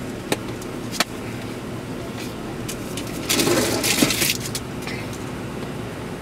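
Steady hum inside an idling car's cabin, with two sharp clicks about a second in and a loud burst of noise around three to four seconds in.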